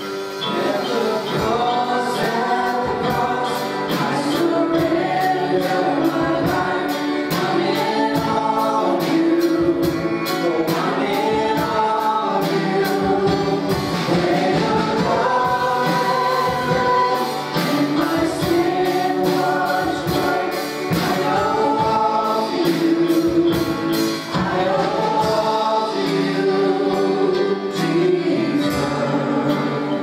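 A group of voices singing a gospel song with instrumental accompaniment and a steady, regular beat.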